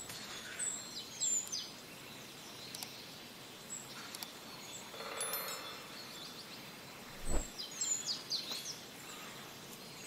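Outdoor ambience: a steady hiss with scattered short, high chirps, a quick cluster about a second in and another around eight seconds. A single dull thump comes about seven seconds in.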